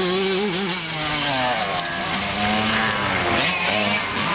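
Motocross bike engines revving, their pitch rising and falling repeatedly with the throttle.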